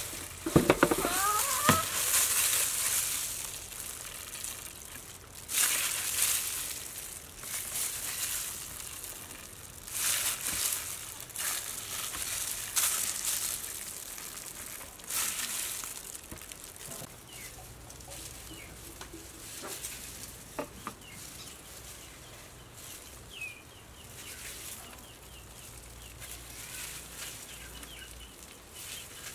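Plastic bag and plastic gloves crinkling in short bursts as a honeycomb is squeezed by hand, the bursts thinning out toward the end. Chickens cluck faintly in the background.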